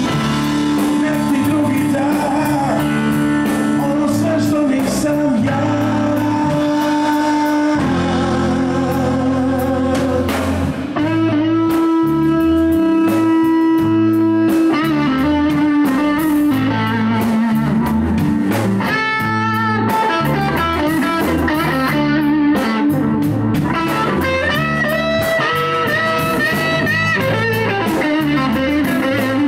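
Live blues trio playing: a Stratocaster-style electric guitar leads with long held and bending notes over bass guitar and drum kit.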